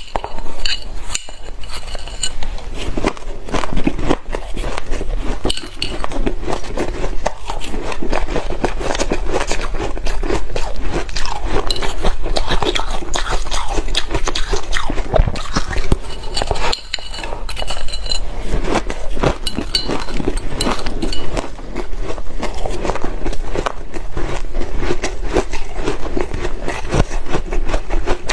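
Shaved ice being crunched and chewed close to the microphone, a steady run of crisp crunches, with chopsticks scraping and clinking against the ice.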